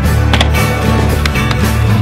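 Music with a heavy, steady bass line, with a few sharp clacks of a skateboard mixed in, about half a second in and twice around a second and a half.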